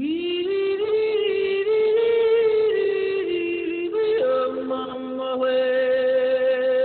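Wordless singing by one high voice: long held notes that step up and down in pitch, then a single note held steadily through the second half.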